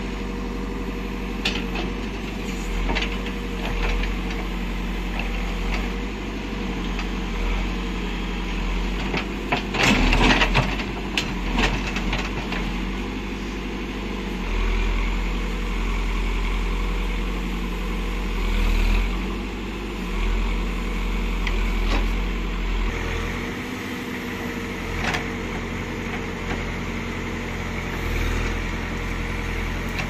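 Diesel engine of a Caterpillar backhoe loader running steadily while the hoe digs, its note rising and falling with the hydraulic load. A burst of sharp clanks and knocks about ten seconds in is the loudest part.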